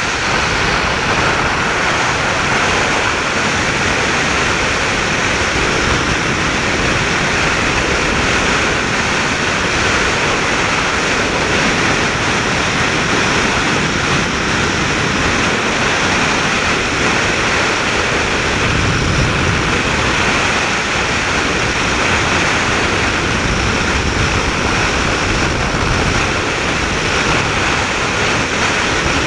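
Off-road 4x4 driving over a flat desert dirt track: a steady, loud rush of wind, tyre and engine noise heard from a camera mounted on the outside of the vehicle, the wind hitting the microphone.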